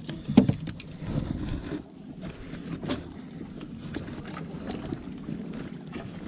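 Wind buffeting the microphone as a low steady rumble, with handling knocks and rustles. A sharp knock about half a second in is the loudest sound.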